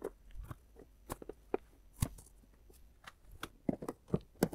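Scattered light clicks and taps of hard plastic as a cabin filter is seated in its plastic housing and the housing cover is fitted.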